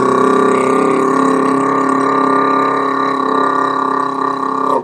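A man's voice holding a loud, steady 'prrr' trill on one pitch, buzzing like a truck with an open exhaust. It is a diction warm-up on one breath with the stomach held hard, sustained until the air runs out and cutting off at the end.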